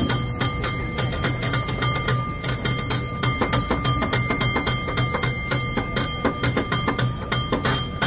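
San Francisco cable car bell rung rapidly by its pull rope in a fast, rhythmic pattern: a quick run of sharp clangs, several a second, with the bell's tone ringing on between strikes.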